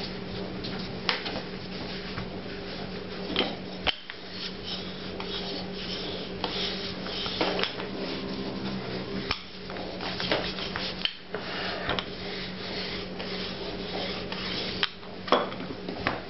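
Wooden rolling pin rolled back and forth over butter-layered pastry dough on a floured countertop, making repeated rubbing strokes with a few sharp knocks. A steady low hum runs underneath.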